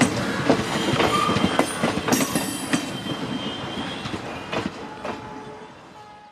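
Wheels of passenger coaches clattering over rail joints as the end of the train passes, with thin squealing tones from the wheels. The clatter thins out and the sound fades steadily as the last coach pulls away.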